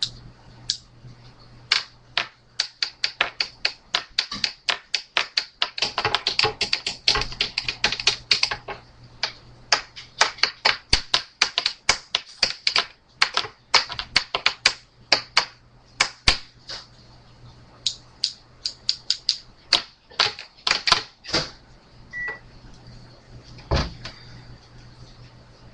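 Typing on a computer keyboard: rapid, irregular key clicks in bursts of several a second, with pauses between bursts. Near the end there is a short beep and a single thump.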